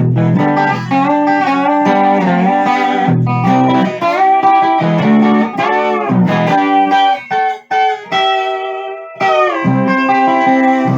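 Six-string steel guitar played on its E-tuned neck, chords sliding up and down in pitch under the steel bar. About eight seconds in the low notes drop away under a single high held chord, then full chords return.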